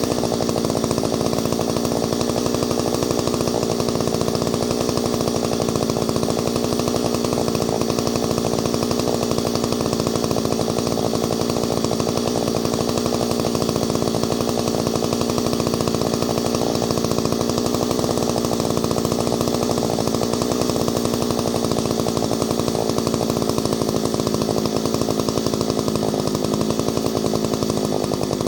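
Ported Solo 670 two-stroke chainsaw running steadily at an even, unchanging speed.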